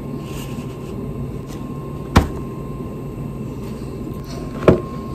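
Two sharp knocks about two and a half seconds apart, as a plastic bowl and a cereal box are set down on a table, over a steady background hum.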